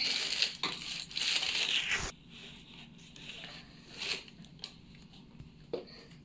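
Shoe-box packaging crinkling and rustling as it is handled, loudest for about the first two seconds. Then quieter rustling with a few light knocks.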